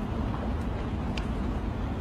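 Rain and a crackling log fire: a steady, low rushing noise with a few sharp crackles, the clearest just past a second in.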